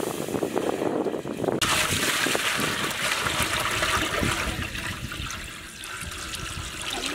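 Water poured from a steel water pot into a large, partly filled metal cooking pot, splashing and gushing steadily as it fills; the splashing grows louder and brighter about a second and a half in.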